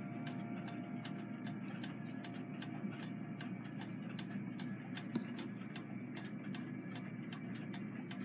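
Steady, regular ticking, about four ticks a second, over a low steady hum.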